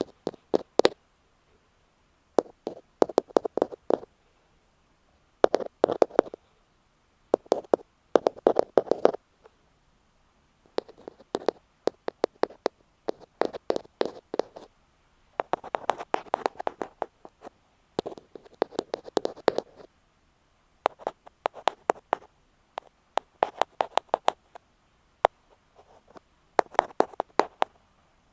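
Ear-cleaning ASMR on an earphone microphone: an ear pick tapping and scratching close on the mic, in quick runs of clicks about a second long with short pauses between.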